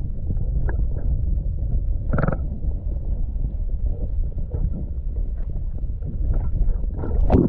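Low rumble of wind buffeting the microphone, with a short creak about two seconds in and a sharp knock near the end.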